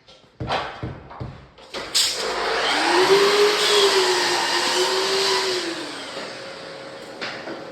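A few knocks, then an electric saw starts about two seconds in and cuts through a timber floorboard for about four seconds. Its motor pitch sags twice under the load of the cut before it winds down.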